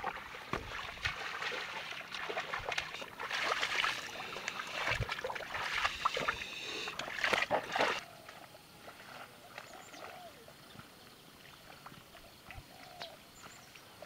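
Water buffalo and a wooden plough sloshing and splashing through the mud and water of a flooded rice paddy. About eight seconds in this gives way to a quiet field background with a few faint bird chirps.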